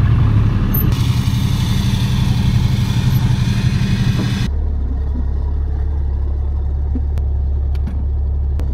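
Ram 3500 pickup's diesel engine running at low speed while the truck reverses toward a fifth-wheel hitch, a steady deep drone. About four and a half seconds in, the hiss over it drops away abruptly, leaving only the low hum, with a few faint clicks near the end.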